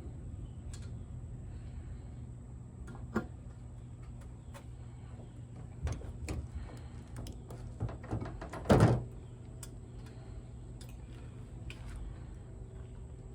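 Parts and tools being handled: scattered light clicks and knocks, with one louder clunk about nine seconds in, over a steady low hum.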